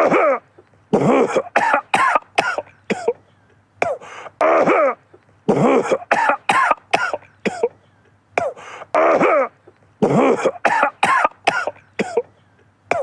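A man coughing in repeated fits: several harsh, voiced coughs in quick succession, then a short pause, with a fit recurring every few seconds.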